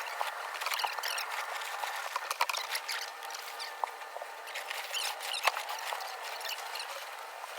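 Sailcloth rustling and crinkling as a genoa is hoisted up a furler's luff track, with scattered clicks and small squeaks from the rigging.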